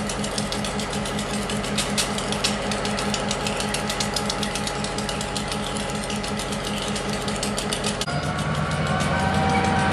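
EMD SW1001 switcher locomotive's diesel engine running with a rapid, even beat as it moves slowly with a cut of gondolas. About eight seconds in the sound changes abruptly to a steadier engine note with several higher steady tones, getting louder.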